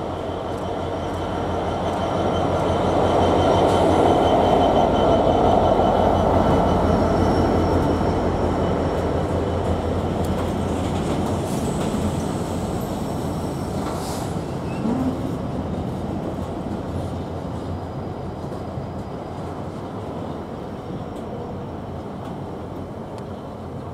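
A GBRf Class 66 diesel locomotive passes close by hauling a container freight train, its two-stroke EMD engine loudest a few seconds in. Then comes a long steady rumble of container wagons rolling past, with thin steady high wheel-squeal tones, one sharp knock about midway, and a slow fade.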